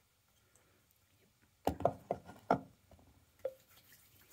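Near silence, then a quick run of knocks and clatters about two seconds in, followed by a lighter knock a little later: bottles and grooming items handled and set down on a bathroom counter.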